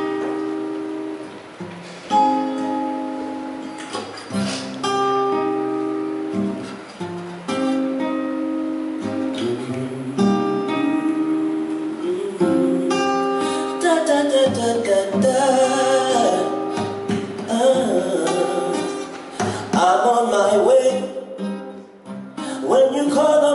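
Acoustic guitar playing a slow song intro, chords struck about every two seconds and left to ring. About halfway through, a man's voice comes in singing long, bending notes over the guitar.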